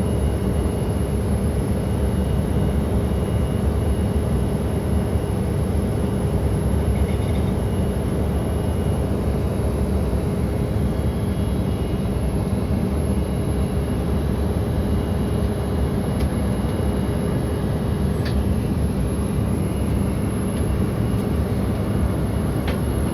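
Steady cabin noise inside an Embraer E-Jet airliner in flight: the constant low rush of airflow and turbofan engines, with a faint steady hum underneath.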